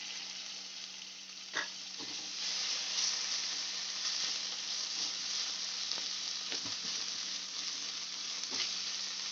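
Chopped vegetables and ginger paste sizzling in hot oil, the sizzle growing louder about two seconds in, with a spatula knocking against the pan a few times as they are stirred.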